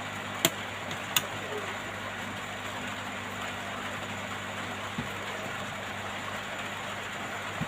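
Hot air rework gun blowing at full heat: a steady hiss over a low hum. Two sharp clicks come about half a second and a second in.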